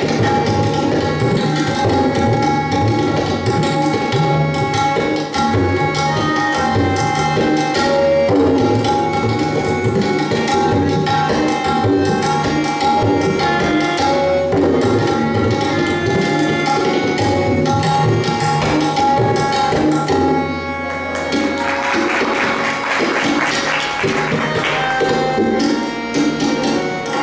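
Tabla solo in teen taal, the 16-beat cycle, with a harmonium steadily repeating the nagma (lehra) melody underneath.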